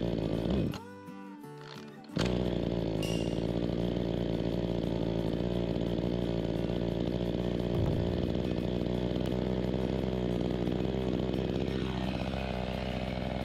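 Two-stroke chainsaw being pull-started: a pull on the starter cord, then about two seconds in the engine catches and keeps running at a steady idle, left to settle after a troublesome start.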